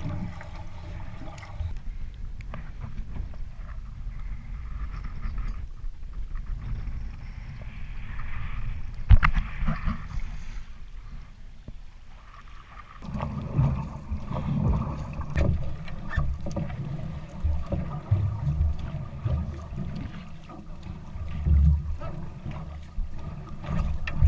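Water sloshing and splashing around a paddled outrigger canoe (va'a), with uneven rumbling buffeting on the microphone that grows louder about halfway through. A single sharp knock comes about nine seconds in.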